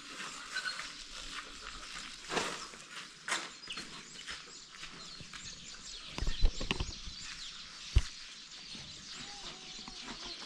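Birds chirping, with scattered knocks: a cluster of louder knocks about six seconds in and a single sharp knock about two seconds later.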